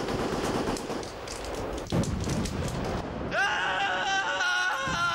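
War-film battle noise: a dense crackling din with one sharp bang about two seconds in. From a little past three seconds a long high wailing tone takes over, bending slightly in pitch.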